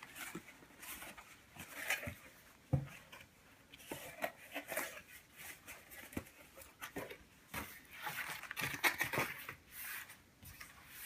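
Cardboard shipping box being handled and folded open: irregular rustling, scraping and light tapping of cardboard, with one sharper knock about three seconds in.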